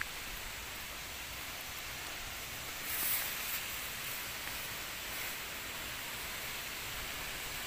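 Steady hiss of monsoon rain falling, with a brief louder rush about three seconds in.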